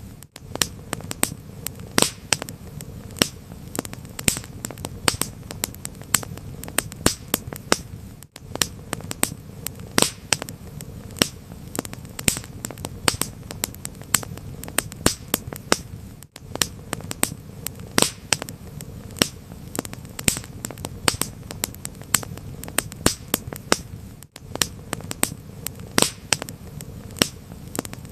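Wood fire in a fireplace crackling: many sharp, irregular pops and snaps over a low, steady rumble of burning, with a brief gap in the sound about every eight seconds.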